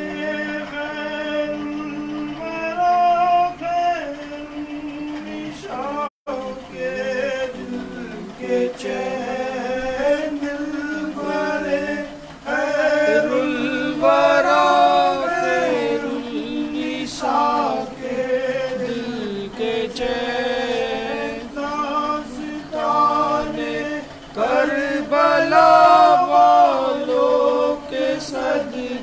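Men singing a devotional Salaam to Imam Hussain together, in long held chanted lines, with a momentary dropout about six seconds in.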